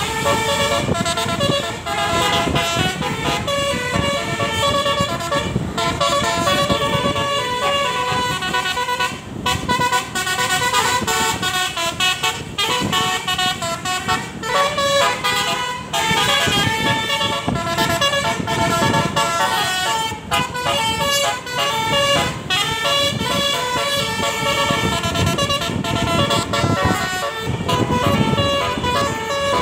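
Bus telolet basuri multi-tone air horn playing a tune at length, its notes changing in quick steps, over a low rumble.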